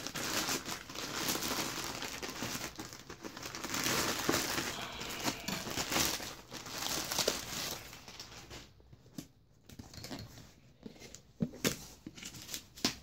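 Plastic courier mailer bag crinkling and tearing as it is ripped open by hand. About eight seconds in the rustling stops and gives way to a few light knocks and scrapes from handling the cardboard box inside.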